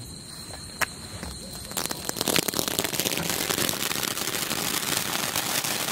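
Mori Magic Pots fountain firework (anar) catching. It is quiet apart from a single click for about two seconds, then it ignites and sprays sparks with a steady, dense crackling hiss.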